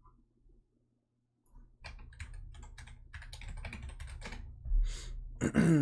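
Fast typing on a computer keyboard: a dense run of keystrokes starting about two seconds in, with one heavier thump near the end. A short burst of voice closes it.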